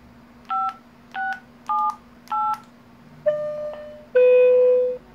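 Four short DTMF keypad tones, evenly spaced about half a second apart, keyed into a handheld radio as a remote command to a repeater controller to force a date announcement. Then two longer beeps, the second lower in pitch and louder.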